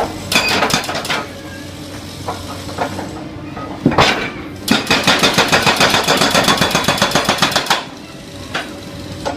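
Backhoe's diesel engine running steadily while its hydraulic hammer breaker strikes: a short run of blows near the start, a single heavy knock about four seconds in, then rapid, even hammering of several blows a second for about three seconds.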